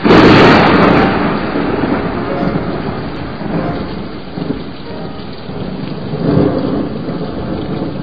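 Thunder and rain: a sudden loud clap that rolls away into a long rumble over a steady hiss of rain, with a second swell of rumbling about six seconds in.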